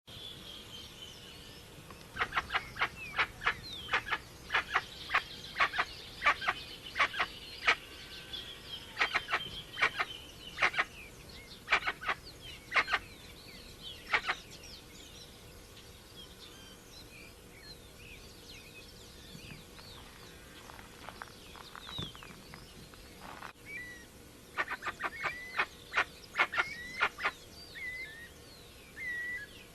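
Guan (jacu, genus Penelope) calling in runs of short, sharp notes, two or three a second, in a long bout and a shorter one later on, with other small birds chirping and whistling around it.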